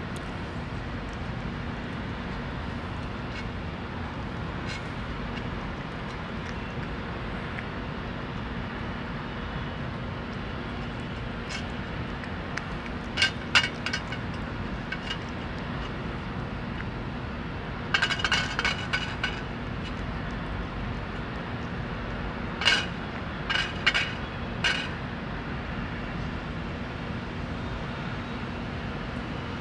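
Metal food dish clinking as a cat eats from it: a couple of sharp clinks about halfway through, a short ringing rattle a few seconds later, then several more clinks, over a steady low background rumble.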